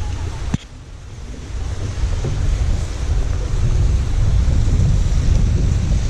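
Wind buffeting the microphone: a loud, flickering low rumble over a fainter hiss. It breaks off abruptly about half a second in, then builds back up and holds.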